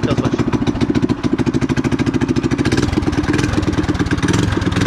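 Small single-cylinder minibike engine running steadily just after starting, with rapid, even exhaust pulses.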